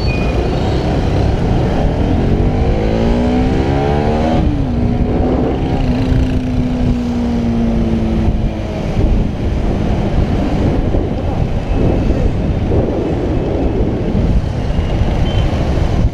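Bajaj Pulsar 200NS single-cylinder engine accelerating, its pitch rising and then dropping sharply about four seconds in as it shifts up, then running at a steady, slowly falling pitch. Heavy wind rumble on the microphone throughout.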